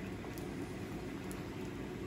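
Steady low hum and hiss of shop equipment running, most likely the forge, with no hammer blows.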